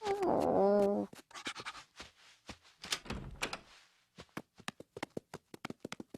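A short 'Oh', then a run of light, irregular clicks and taps with a few soft rustles, coming faster near the end: cartoon sound effects.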